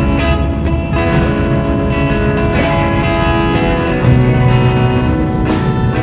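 Background music: guitar over a steady drum beat.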